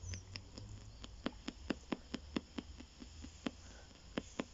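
PSB7 spirit box sweeping the AM band at 250 ms per station and played through a small speaker: a steady run of sharp clicks, about four a second, over faint radio static.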